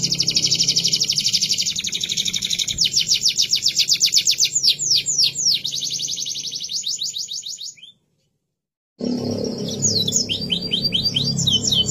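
Domestic canary singing a fast, rolling song of rapidly repeated high trills and descending notes. About eight seconds in the sound cuts out completely for about a second, then the song carries on.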